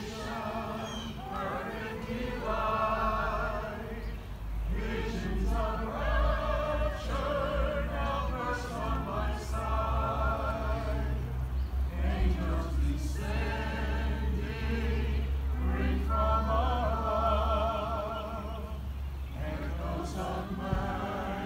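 Church choir singing, mixed voices holding sung phrases with vibrato and short breaks between them. A steady low rumble runs underneath from about four seconds in until near the end.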